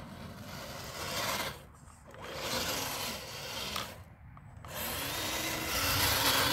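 Redcat Gen8 V2 RC crawler's electric motor and geared drivetrain whirring as it climbs loose dirt, its tyres scrabbling. The whir drops away twice and rises and falls in pitch near the end as the throttle changes.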